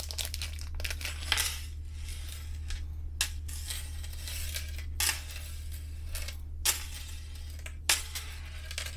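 Metal wallet chain clinking as it is handled: several short, separate clinks over a steady low hum.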